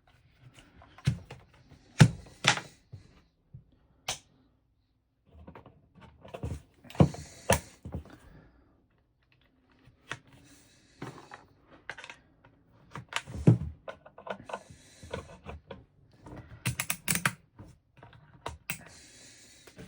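Irregular clicks, taps and rustles of hands working with a multimeter and its test leads, with the loudest sharp clicks about two and thirteen seconds in.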